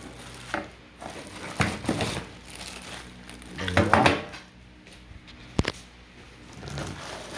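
Rifle magazines being handled and set down: a few hard clacks and knocks, with one sharp click about five and a half seconds in.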